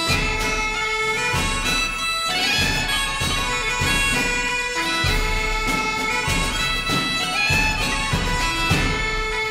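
Background music: a sustained, reedy melody moving note to note over a steady low drum beat.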